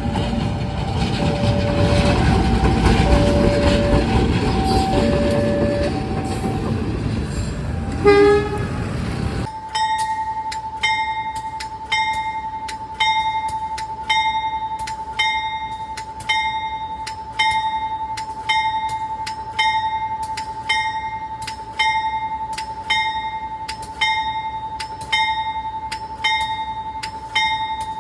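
A train running, with rail noise and faint alternating horn tones, ending in a short loud blast. After an abrupt change about nine and a half seconds in, a locomotive warning bell rings steadily, about one stroke a second, each stroke ringing on the same pitch as it fades.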